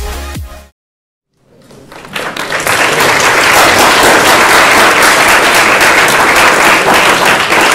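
A beat of electronic dance music cuts off under a second in. After a brief silence, applause from a large audience builds up and goes on steadily.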